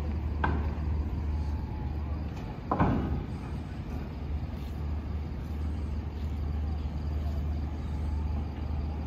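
Construction-site ambience: a steady low hum with two sharp knocks, one about half a second in and a louder one just under three seconds in, and faint distant voices.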